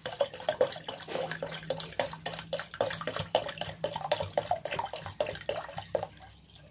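Water glugging out of an upturned plastic bottle and splashing into a steel pot of tamarind water, in quick irregular gulps. The pouring dies away about six seconds in.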